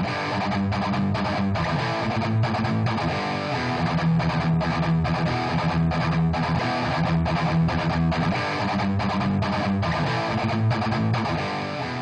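Background music led by strummed guitar, with a steady beat.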